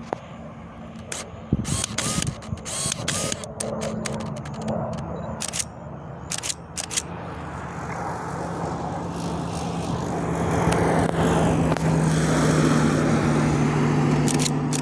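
Pilatus PC-21 turboprop trainer approaching, its engine drone growing steadily louder through the second half with a steady low hum. Scattered sharp clicks sound in the first half.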